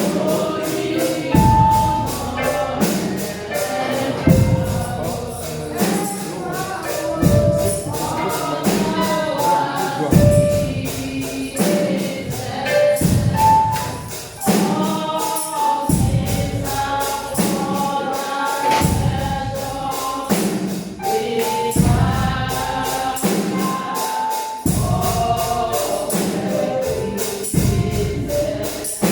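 Gospel song sung by a group of voices with a tambourine keeping a steady beat.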